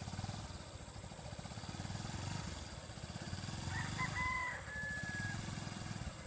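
A rooster crows once, about four seconds in, over the steady low pulsing of a small motorcycle engine running.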